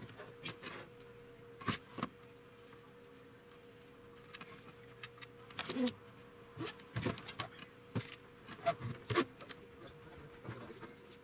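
Scattered light clicks and knocks from a TV circuit board being handled and turned over on a workbench, a few a second apart at most, over a faint steady hum.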